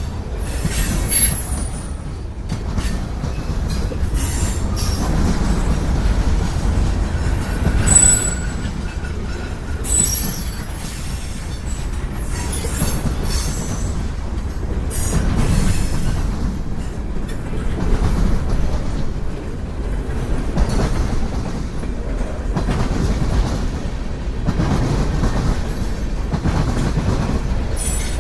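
Freight train cars rolling past close by: a steady low rumble of wheels on rail, with clacks over the rail joints and short high-pitched wheel squeals, clearest about one and eight seconds in.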